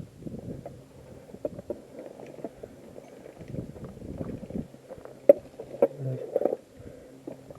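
Rustling and knocking of a moving player's gear against the camera microphone, with scattered small clicks and a sharp knock a little over five seconds in.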